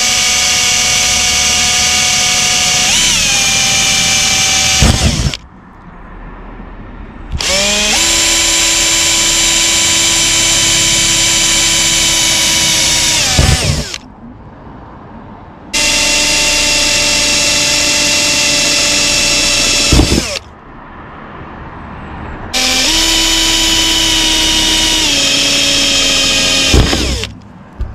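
Bosch 18V cordless drill drilling small pilot holes through a van's steel roof for self-tapping screws. It runs four times, a few to six seconds each, with short pauses between, and its motor whine steps up and down in pitch as the trigger is eased.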